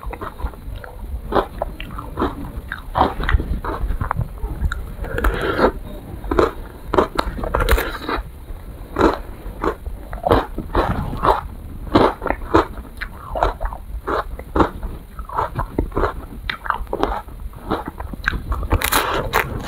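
Close-miked eating of an ice cream in a wafer cone: irregular crisp bites and crunching of the cone, with chewing in between.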